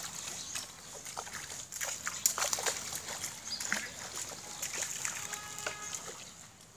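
Pond water sloshing and splashing with scattered small, sharp splashes. A short pitched whine is heard about five seconds in.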